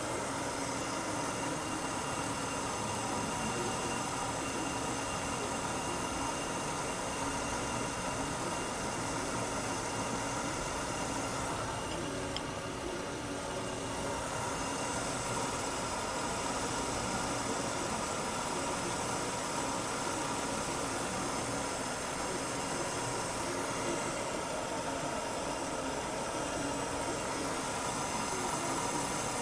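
Mercedes-Benz W124's M103 straight-six idling steadily while its mixture duty cycle is being measured.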